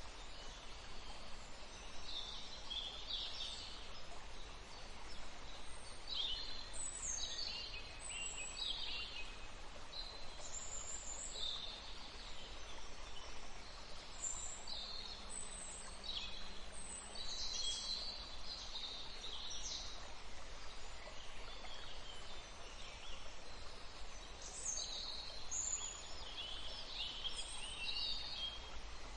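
Several songbirds calling and singing: short, high chirping phrases in clusters every few seconds, over a steady, even background rush.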